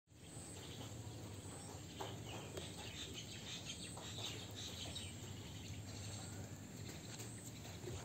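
Outdoor rural ambience: insects chirring steadily with some bird calls, over a low steady background hum, with a few faint clicks.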